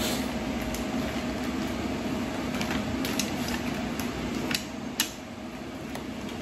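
Thin plastic packaging bag crinkling and rustling as a replacement fridge thermistor and its wire are pulled out of it, with scattered sharp clicks, the sharpest about five seconds in, over a steady low hum.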